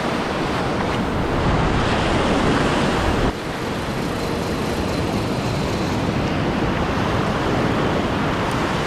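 Surf washing onto a beach with wind on the microphone, a steady rushing noise that swells and then drops off abruptly about a third of the way in.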